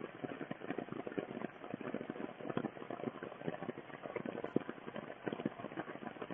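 Steady rain pattering onto floodwater and sodden grass, a dense run of tiny drop ticks with no letup.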